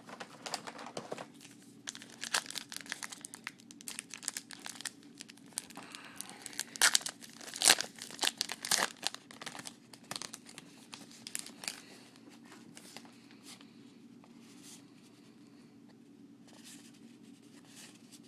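Trading card pack wrappers being torn open and crinkled, with irregular crackling that is busiest and loudest around the middle and thins out near the end.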